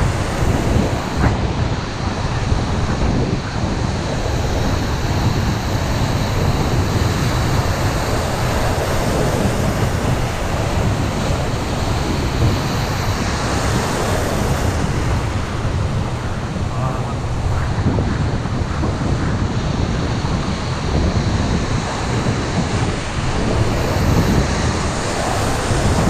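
Surf breaking and churning at close range, with wind buffeting the microphone.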